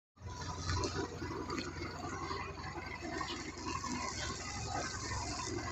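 Harbour water sloshing and splashing along moored wooden fishing boats, over a low steady hum.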